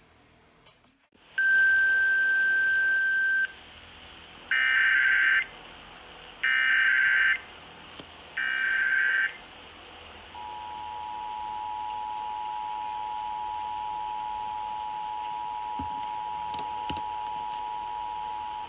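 Emergency Alert System tones: a steady single beep for about two seconds, then the three short buzzing data bursts of the SAME header, about a second apart, then the two-tone attention signal held steadily for about eight seconds, announcing an incoming alert.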